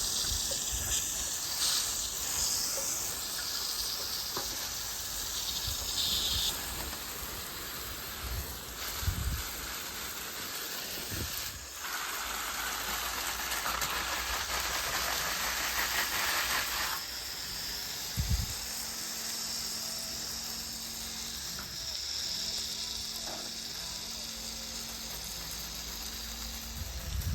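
Water spraying from a hose nozzle, a steady hiss that grows louder for a few seconds around the middle.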